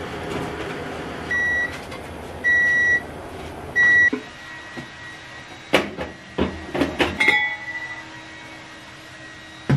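A pot simmering on a gas stove, with three electronic beeps about a second apart. After the simmering stops, a white clay donabe pot and its ceramic lid are handled, giving several knocks and clinks.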